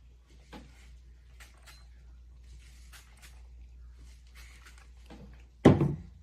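Faint handling noise: scattered small clicks and rustles, then one sudden loud thump near the end.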